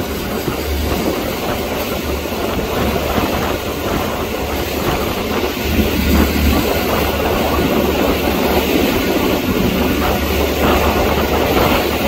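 Motorboat under way on choppy water: a steady low engine drone with water rushing and slapping against the hull.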